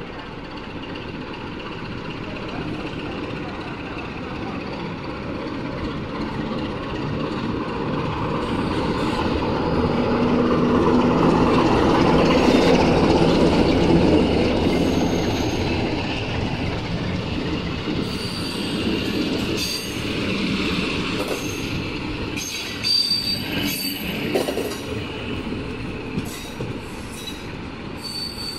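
A Romanian 060-DA diesel-electric locomotive hauls a passenger train past. The locomotive's engine swells to its loudest about halfway through. The coaches then roll by with high-pitched wheel squeal and sharp clacks over the rail joints and points.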